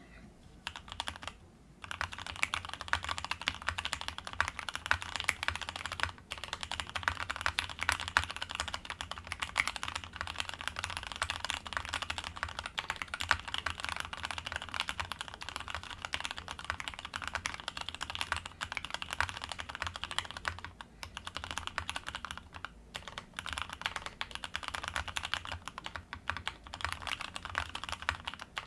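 Fast, continuous typing on a Matrix 2.0 mechanical keyboard fitted with Zeal Tealios V2 67g linear switches, a dense run of key strikes. It starts about two seconds in and pauses briefly a few times.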